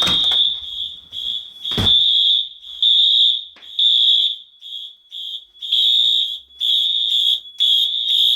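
Wheelock fire alarm horn strobes sounding a high, piercing tone in repeating pulses, with the pulses coming quicker near the end; one sharp knock about two seconds in.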